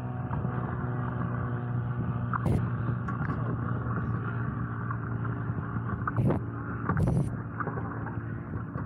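Small boat motor running at a steady hum while the paddle board moves through choppy water, with water rushing and splashing alongside. A few short sharp noises stand out, one about two and a half seconds in and two more between six and seven seconds.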